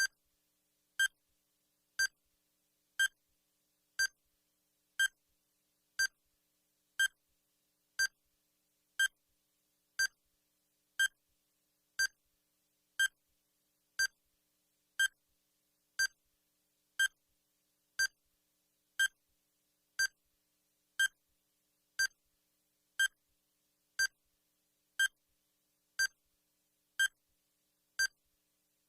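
Time-bomb countdown timer sound effect: a short electronic beep exactly once a second, evenly spaced and unchanging, with silence between beeps.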